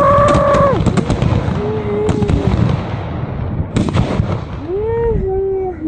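A bundle of about fifty firecrackers going off together: a dense string of bangs that thins out, with single loud bangs about two seconds in and near the four-second mark. Two long rising-and-falling cries sound over it, one at the start and one near the end.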